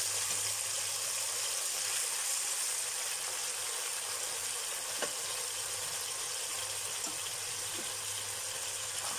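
Marinated pork steaks sizzling steadily as they fry in hot oil in a pan, with a couple of faint pops.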